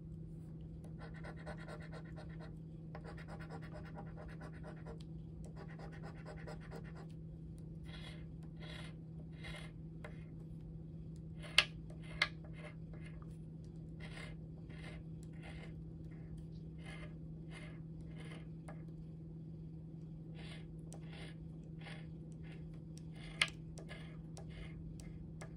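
Scratch-off lottery ticket being scratched: a few longer scraping strokes first, then many short quick strokes about two a second, with a few sharp taps among them.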